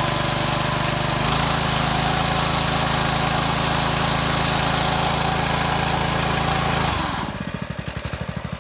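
Predator 212 single-cylinder four-stroke engine on a mini bike running steadily. About seven seconds in it shuts off, and its firing pulses slow and fade as it winds down to a stop.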